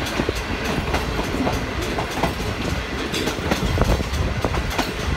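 Pakistan Railways Shalimar Express passenger coach running along the track: a steady low rumble with irregular clatter and rattling of the wheels and coach, heard from beside the open side of the coach.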